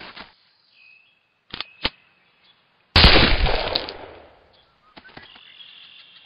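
Two short sharp clicks about a second and a half in, then a single loud pistol shot about three seconds in that dies away over a second or so. A faint, steady high tone follows near the end.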